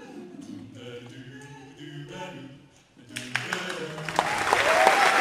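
Male a cappella group singing in close harmony over a low bass part, ending a little under three seconds in. The audience then breaks into applause that grows loud toward the end.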